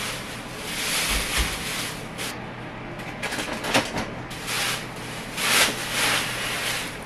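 Thin plastic grocery bags rustling and crinkling in repeated bursts as groceries are taken out of them, with a sharp knock about four seconds in.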